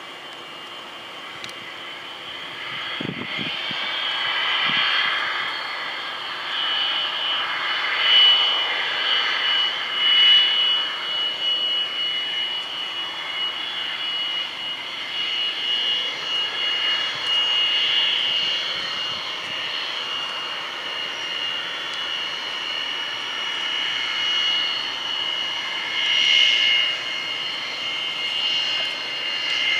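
Twin Pratt & Whitney J52 turbojets of a Grumman EA-6B Prowler taxiing: a steady high-pitched whine over a jet rush. It grows louder over the first few seconds as the jet approaches, then swells and fades as it turns and rolls past.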